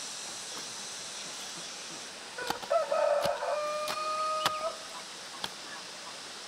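A rooster crows once, starting about two and a half seconds in, with a rising opening and then a long held note. A hoe chops into the soil a few times.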